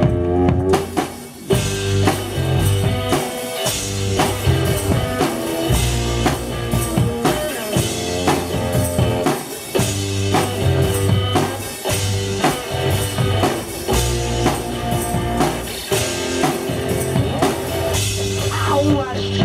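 One-man band playing rock music: guitar over a steady drum-kit beat with bass drum.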